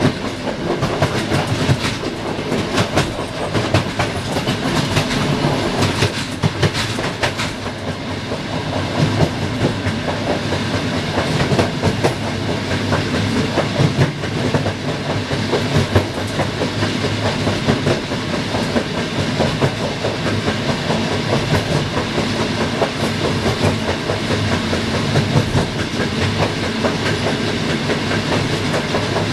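Passenger train carriage running on jointed track: wheels clattering over rail joints and points with a steady rumble. The clatter is busiest in the first several seconds, while the train crosses the switches, and settles into a steadier clickety-clack after that.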